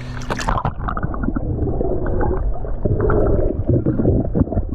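Water sloshing and gurgling heard from under the surface, muffled, with the high end cut off. A brief splash about half a second in as the camera dips under.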